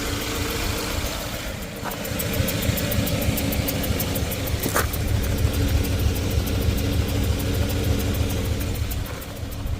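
2013 Subaru 2.5-litre flat-four engine idling, a steady low rumble with a rapid, regular light ticking over it and a couple of sharp clicks; the engine has a misfire.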